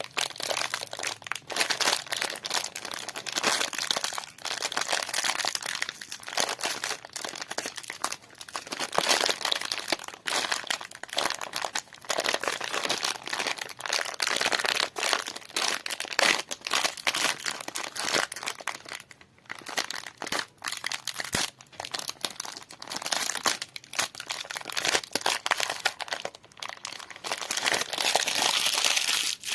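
Packaging wrappers crinkling and crackling as they are handled and opened, with a brief lull about two-thirds of the way through.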